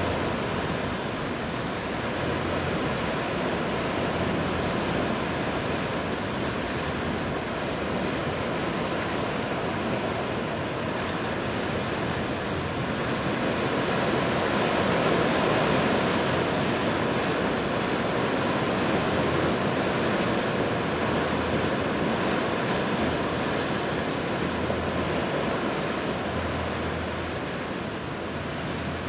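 Sea waves washing, with wind on the microphone: a steady hiss of water that swells a little around the middle.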